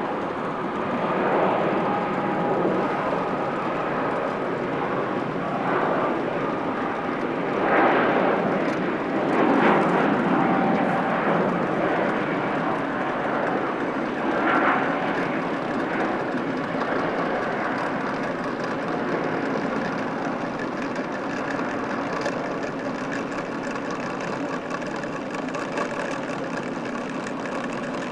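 Jet noise from an Airbus A321neo's Pratt & Whitney PW1100G geared turbofans on its takeoff, with a whining tone over the rush. It swells several times in the first half, loudest around a third of the way in, then slowly fades.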